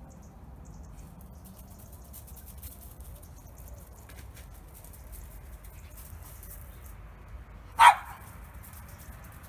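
Cavalier King Charles spaniel giving a single short, loud bark near the end.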